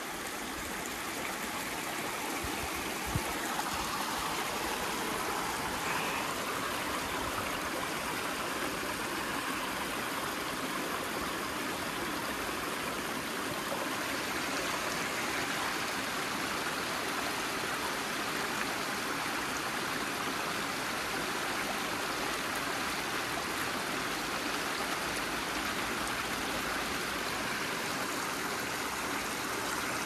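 Small spring-fed waterfall: clear water rushing and splashing steadily over mossy rocks.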